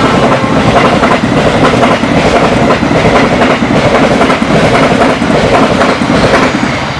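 Passenger train coaches passing close at speed: a steady rumble of steel wheels on rail with a regular clickety-clack as the wheel sets cross rail joints. The noise drops off near the end.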